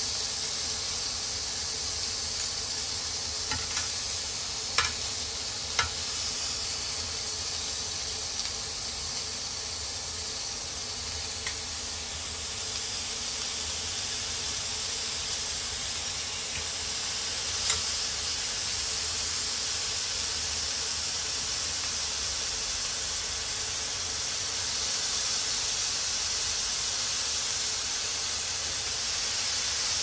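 Bacon and hot dogs sizzling steadily on a hot non-stick induction grill pan, with a few sharp clicks of tongs against the pan in the first six seconds and once more about eighteen seconds in. The sizzle grows a little louder near the end as more bacon strips go on.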